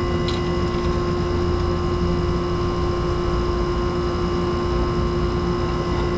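Steady machine hum with several constant tones from the air conditioner's outdoor condenser unit, running evenly without change.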